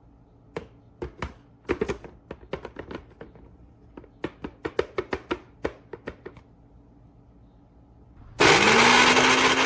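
A run of sharp clicks and knocks of handling for the first six seconds, then the Black+Decker countertop blender's motor starts near the end with a rising whine that settles into a loud, steady run.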